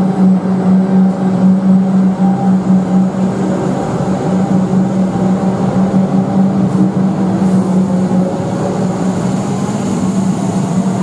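Suburban electric train pulling out of an underground station platform. A steady low hum from the standing train drops away about eight seconds in, while the traction motors' whine rises slowly in pitch as it accelerates.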